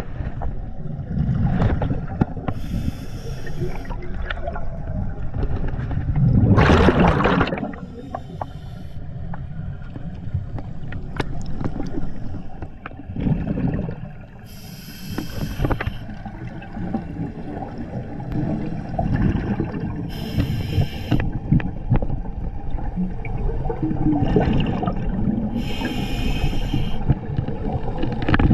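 Scuba diver breathing through an open-circuit regulator underwater: a hiss on each inhale and a rush of bubbles on each exhale, repeating about every five to six seconds, over a steady low underwater rumble. The loudest bubble burst comes about seven seconds in.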